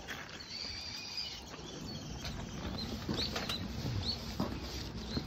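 Quiet outdoor ambience with small birds chirping: a thin high whistle about half a second in, then short high chirps every half second or so in the second half.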